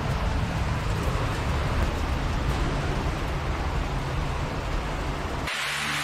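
Heavy rain falling, a steady hiss with a low rumble underneath. About half a second before the end the sound cuts to a brighter rain hiss with music starting under it.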